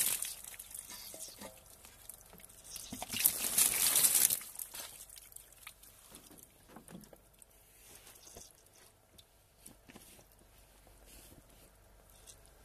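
Water spraying in a hissing rush onto a freshly copper-plated figurine for about a second and a half, about three seconds in, followed by light drips and small scattered clicks as it is handled.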